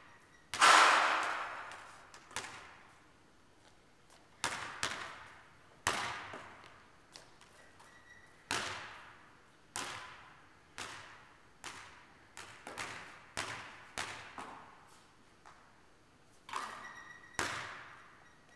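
A basketball bouncing and thudding on the court floor and off the hoop, each hit echoing in the big gymnasium hall. One loud bang comes about half a second in, then single bounces and short runs of bounces at irregular intervals.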